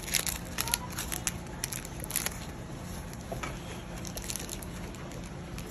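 Foil booster-pack wrappers crinkling as they are handled, in quick clusters of sharp crackles.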